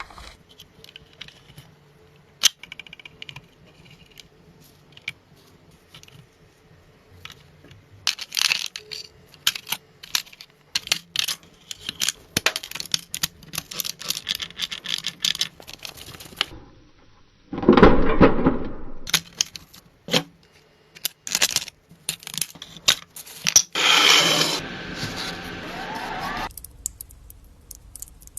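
Hands-on workshop work on a car: scattered clicks, scrapes and tearing sounds, with a loud burst of noise about two-thirds of the way through and another stretch of noise near the end.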